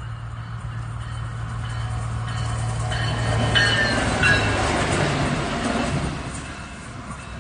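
Diesel multiple-unit passenger train approaching and passing close by: its rumble builds to its loudest about halfway through and fades as the cars go by, with a few brief high-pitched tones as it passes.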